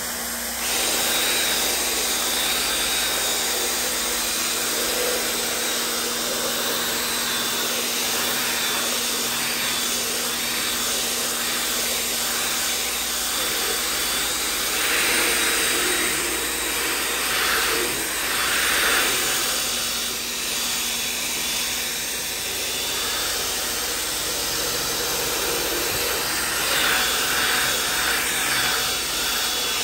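Power drill spinning a round scrub brush against upholstery fabric: a steady whir with scrubbing noise. It starts about half a second in and gets louder and brighter in two stretches, one about halfway through and one near the end.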